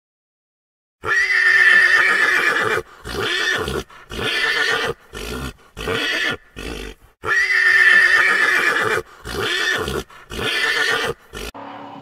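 A horse whinnying twice, starting about a second in: each whinny opens with a long, loud, high call and trails off in a run of shorter, quieter calls.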